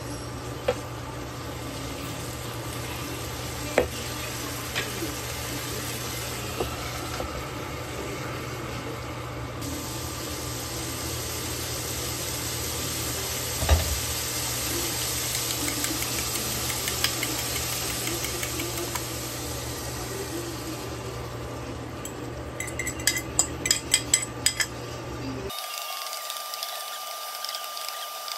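Sliced bitter gourd stir-frying in a nonstick pan: a steady sizzle with the scrape and tap of a wooden spatula against the pan, a sharper knock about halfway through and a quick run of taps later on. Near the end the sizzle gives way abruptly to a thinner sound with a faint steady tone.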